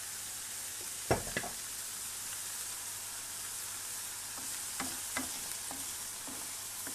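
Diced onion and zucchini sizzling in oil in a frying pan while being stirred with a wooden spoon. The spoon knocks against the pan twice about a second in and scrapes lightly a few times later.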